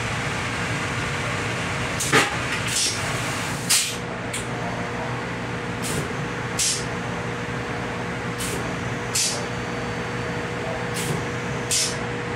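Steady running noise and hum of a Long Island Rail Road C3 bilevel coach, heard inside its small restroom. Over it come short, sharp hissing clicks in five pairs about 0.7 s apart, a pair every two to three seconds.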